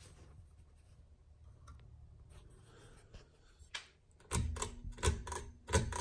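Hunter Silent Breeze ceiling fan running with a faint low hum; about four seconds in comes a quick run of sharp clicks and knocks as a hand goes to the fan's pull chain, and a steady hum sets in at the same moment.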